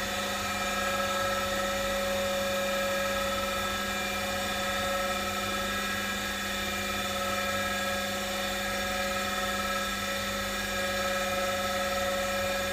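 Brewery pump running steadily, recirculating caustic cleaning solution through the lines and sight glass: a constant hum with several fixed tones that does not change.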